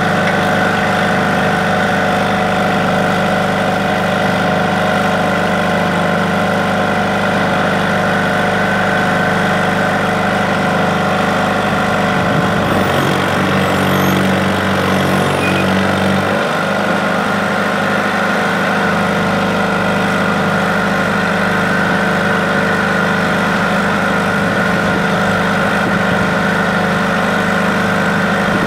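Crawler dozer's engine idling steadily, its note changing for a few seconds about halfway through.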